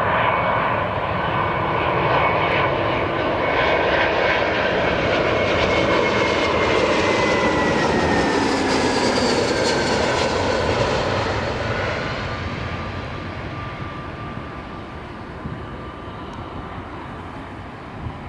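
Departing jet airliner's engines passing by: the noise builds to a peak with tones sliding down in pitch as it goes past, then fades away over the last few seconds.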